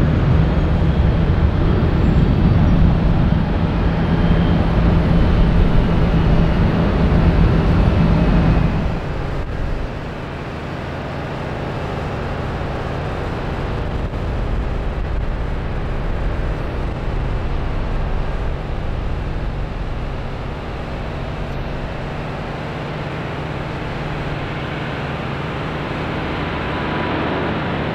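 Jet airliner engines running loud: a heavy rumble with a steady low hum that falls off abruptly about nine seconds in, leaving a quieter, steady rumble.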